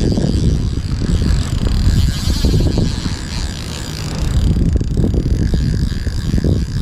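Wind buffeting the microphone: a loud, low, uneven rumble that eases a little around three to four seconds in.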